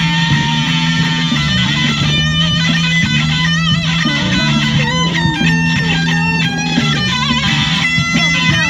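Electric guitar played through a small amplifier, improvising blues lead lines with wavering, bent high notes over steady low notes underneath.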